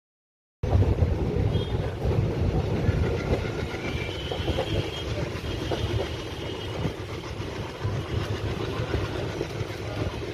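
Twin WDM-3D diesel locomotives (16-cylinder ALCO 251 engines) chugging under hard acceleration, heard from a coach window over the heavy rumble and clatter of the coach's wheels on the rails. The sound cuts in suddenly about half a second in.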